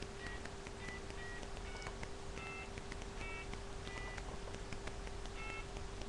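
Telephone keypad beeping as a number is dialed: short, flat beeps at irregular intervals, about one or two a second, over a steady low hum.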